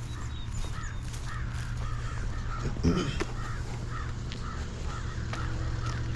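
Crows cawing in a steady series, about two calls a second, over the low steady drone of an idling diesel engine; a single low knock about halfway through.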